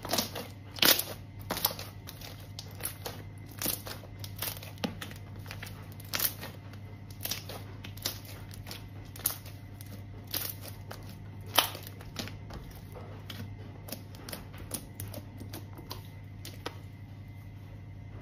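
Hands kneading and pressing a large blob of glittery slime, giving irregular sharp clicks and pops about once or twice a second, over a low steady hum.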